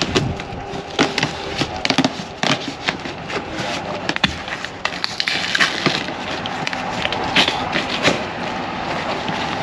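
Irregular clicks, knocks and clatter of parts and hand tools being handled.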